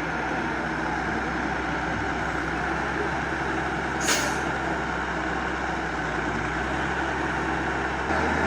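Heavy diesel engine running steadily, with a short hiss of released air about four seconds in; the engine note steps up just before the end.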